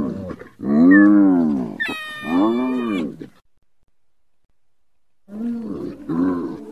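Spotted hyenas calling: drawn-out calls that rise and fall in pitch, a higher, shriller call overlapping the second one. After a pause of about two seconds comes a run of shorter, choppier calls.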